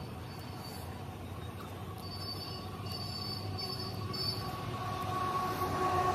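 A distant vehicle's low rumble with a steady whine on top, growing steadily louder as it approaches.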